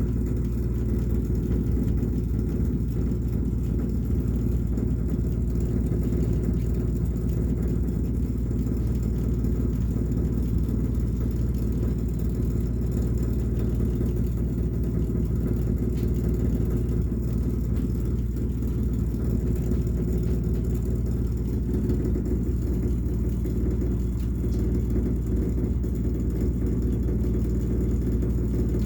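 A steady, low rumbling noise with a constant hum, unchanging throughout.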